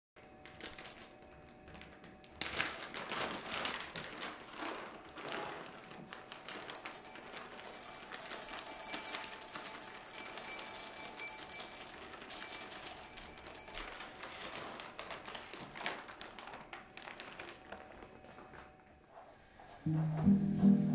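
Small pieces of dark chocolate clattering and clinking into a glass bowl on a kitchen scale, in scattered runs of quick ticks. Acoustic guitar music starts near the end.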